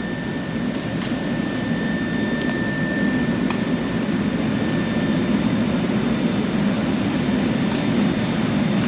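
Husqvarna floor grinder fitted with bush hammer plates running on a concrete slab, a steady heavy grinding noise as the points chip and roughen the surface. A thin high whine sits over it for about the first five seconds, and a few sharp ticks break through.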